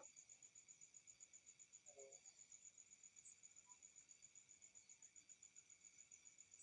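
Near silence: room tone with a faint, high, rapid pulsing chirp, about seven pulses a second, and a faint brief handling sound about two seconds in.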